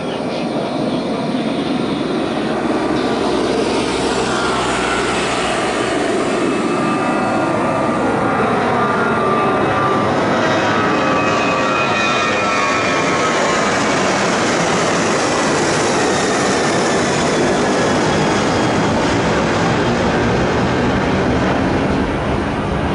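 Boeing 737-900ER jet airliner taking off, its twin jet engines running loud and steady at takeoff power, with a whine that falls in pitch from about four seconds in as it passes.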